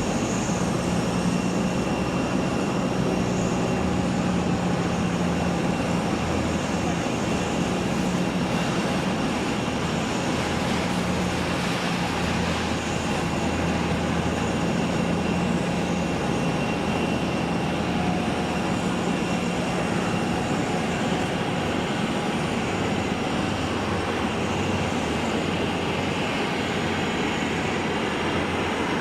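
Jet airliner engines running: a steady, even noise with a low hum that fades out about twenty seconds in and a faint high whistle.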